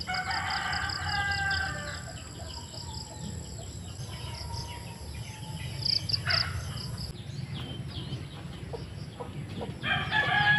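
Rooster crowing, one long crow at the start and another near the end, with small birds chirping in between.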